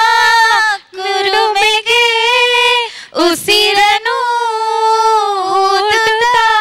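A young woman singing a Kannada song solo and unaccompanied, in long held notes, breaking briefly for breath about a second in and again about three seconds in.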